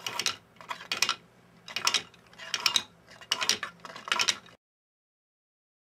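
Hand-turned plastic Geneva drive model clacking as its drive pin steps the four-slot driven wheel round, in six short bursts of clicks about every 0.8 s. The sound then cuts off abruptly.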